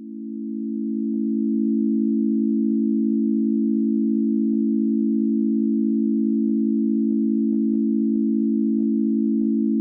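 ECI DT 1200 electronic siren sounding a steady, unchanging tone for the fire-alarm (Feueralarm) signal during a routine monthly siren test. It swells up over the first second or two, then holds level.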